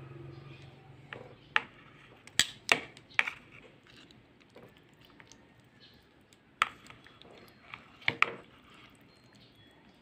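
Metal kitchen tongs clicking and tapping while picking up raw marinated chicken pieces from a plastic bowl. There is a scattered series of sharp clicks, several in the first few seconds and another cluster late on.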